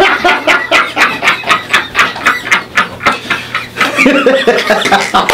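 Hearty laughter in loud, rhythmic pulses of about five a second, with people breaking up into laughter.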